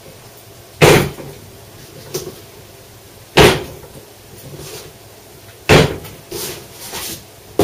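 Stacks of packaging tape rolls set down hard on a table: three loud thuds about two and a half seconds apart, with lighter knocks between.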